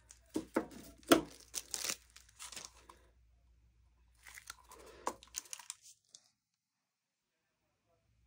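Thin plastic piping bag crinkling and rustling as it is handled, with a run of sharp crackles in the first few seconds and a second, softer burst of crinkling about four seconds in.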